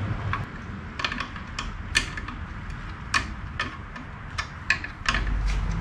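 Sharp, irregular metallic clicks of a wrench working the motor mount bolts on a vintage Craftsman 150 drill press, a few clicks a second.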